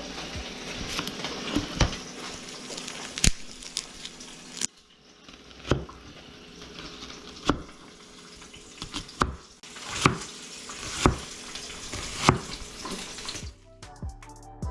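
Kitchen cooking sounds: a hissing sizzle with scattered sharp clicks and knocks of utensils, the sizzle dropping away about five seconds in while the clicks go on. Music comes in near the end.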